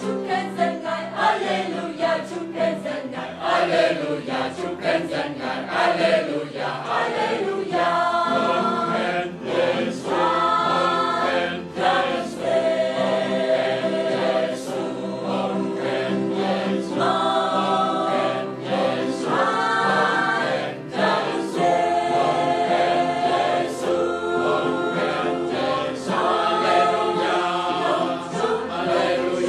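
Mixed choir of men and women singing together, in phrases of held chords.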